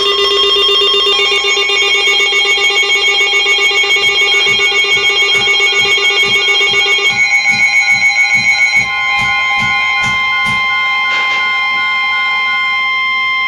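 Emergency Alert System alert tones: loud, steady electronic tones with a warbling, pulsing pattern that changes about seven seconds in to plainer steady tones, signalling the start of a severe thunderstorm warning.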